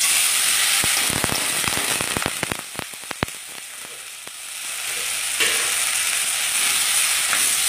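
Freshly washed, still-wet moong dal hitting hot oil in a kadai: loud sizzling with sharp crackles and pops in the first few seconds as the water on the dal spatters in the oil. The sizzle eases off, then swells again suddenly a little past halfway.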